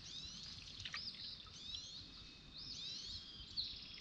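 Wild birds calling: many short chirps and whistled slurs, rising and falling, overlap continuously, with one sharper call just before the end.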